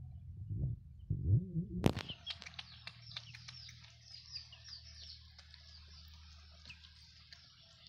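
Low rumbling for about two seconds, then a sharp click. After the click, many birds chirp, a dense chorus of short falling notes that goes on and slowly fades.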